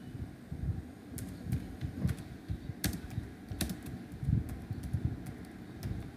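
Typing on a computer keyboard: a run of irregular key clicks as a short phrase is typed out key by key.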